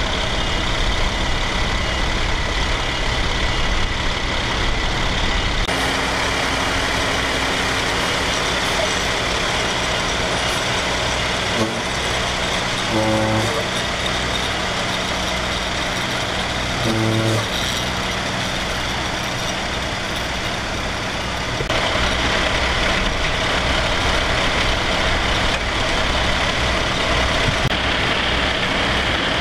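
Fire engine running steadily, a continuous noisy drone with a few steady tones in it, which changes abruptly twice. About halfway through, two short pitched sounds come a few seconds apart.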